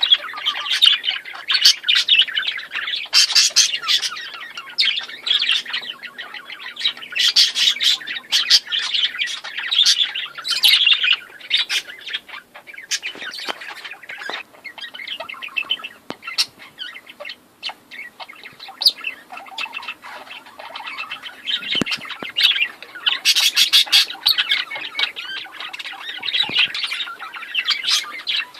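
A group of birds chirping and squawking continuously, many short overlapping calls, thinning out somewhat midway before growing busy again.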